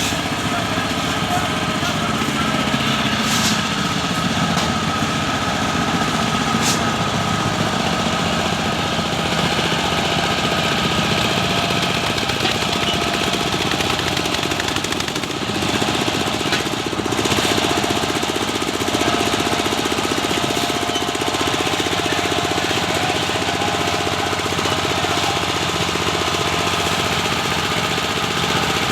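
A construction machine's small engine running steadily, with a fast even rattle throughout.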